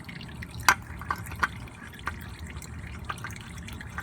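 Used engine oil dripping from the open drain hole into a drain pan: a steady trickle with separate drips, the loudest about three-quarters of a second in.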